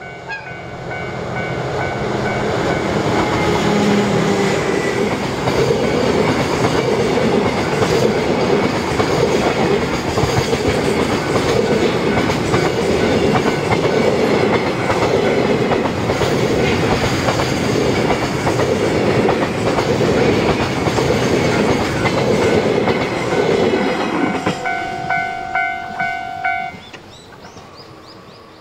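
JR Freight DF200 diesel-electric locomotive passing close by with its horn sounding and its engine running, then a long container freight train rumbling and clacking over the rail joints. Near the end the clacking comes in separate pulses as the last wagons pass, and the sound then drops away.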